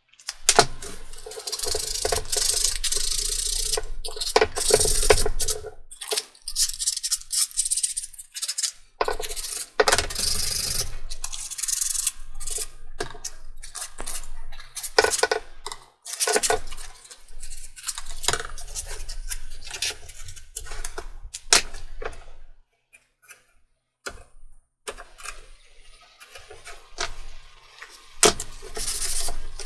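MDF cutout being sanded by hand with a small sanding pad: irregular runs of quick rubbing strokes with short pauses, going quieter for a few seconds near the end.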